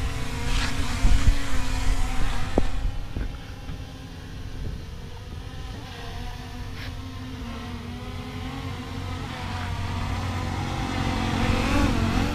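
DJI Mini 3 quadcopter hovering, its propellers giving a steady hum of several tones that wobble slightly in pitch over a low rumble. It is louder at the start, fades a little about four seconds in, and grows louder again near the end.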